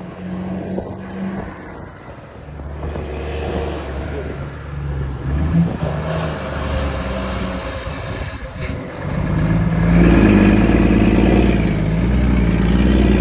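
Volvo FH 500 truck's 13-litre straight-six diesel, running loaded through an aftermarket exhaust with a deep rumble. The engine note shifts in pitch and grows much louder about nine seconds in.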